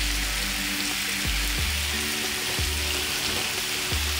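Marinated beef and vegetables sizzling on a hot electric tabletop grill, a steady hiss, under background music with sustained low notes.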